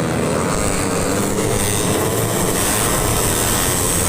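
Tuned 150 cc four-stroke underbone racing motorcycles running together as a steady, dense engine noise.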